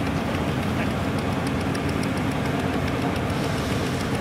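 Dechentreiter threshing machine running at a steady hum while sheaves of grain are fed into it, with faint high ticking over the top.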